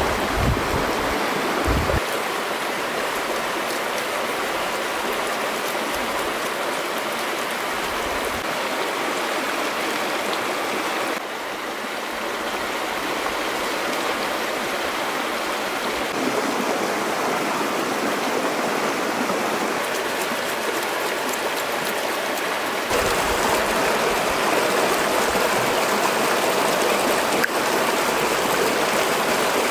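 Shallow, rocky stream rushing steadily over stones, an even water noise that dips slightly about a third of the way in and grows louder for the last part.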